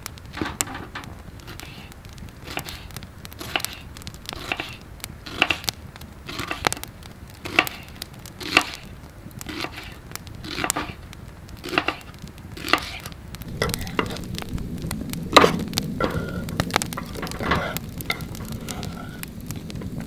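Campfire crackling, with a run of sharp cracks and knocks roughly once a second; a low rushing sound builds about two-thirds of the way through.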